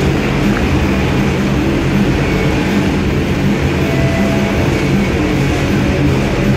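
Motorcycle engines running loud and steady inside a steel-mesh globe of death.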